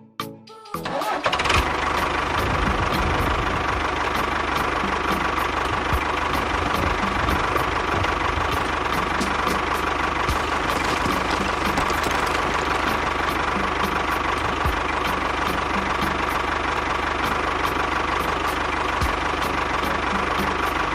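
A small engine starts about a second in and then runs steadily at an even speed.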